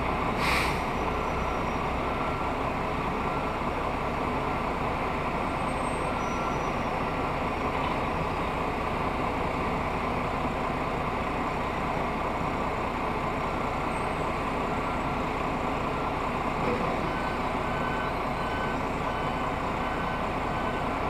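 Steady diesel engine idle heard from inside a truck cab. A reversing alarm beeps faintly on and off, and there is a short hiss about half a second in.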